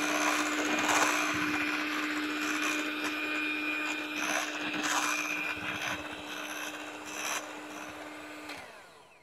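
Electric hand mixer running at a steady speed, its beaters whipping heavy cream and vanilla pudding that is nearly at stiff peaks. Near the end the motor is switched off and winds down.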